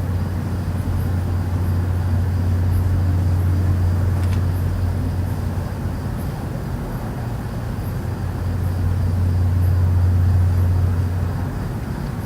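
A loud, low, steady hum that does not break, with slow swells in level. It is the unexplained 'strange sound' being recorded, and its source is not identified.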